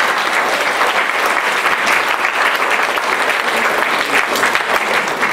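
Audience applauding steadily, many hand claps blending together.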